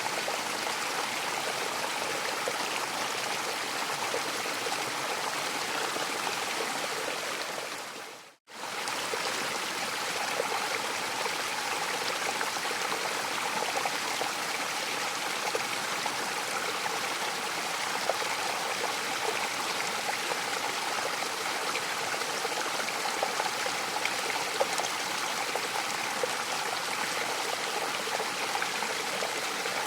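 Mountain waterfall: a steady rush of falling water, which fades out briefly and comes straight back about eight seconds in.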